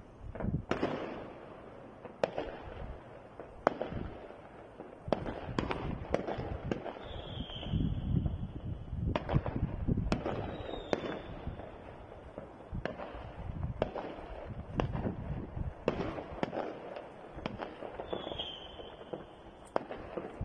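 Many fireworks going off: sharp bangs and cracks at irregular spacing, a second or so apart, over a continuous low rumble, with a few short high whistles that fall slightly in pitch.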